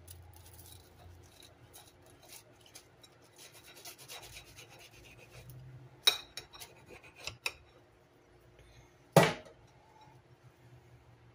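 Knife sawing through a toasted Texas toast grilled cheese sandwich on a plate: a quick series of crisp scraping strokes on the crust. Sharp clicks of the blade come around six and seven seconds in, and one louder clink about nine seconds in.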